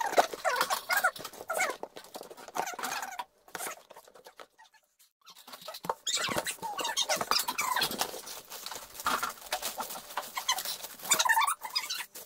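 A cardboard delivery box being opened and handled: scraping, tapping and rustling of cardboard with squeaky sounds among them, easing off briefly about a third of the way through before starting again.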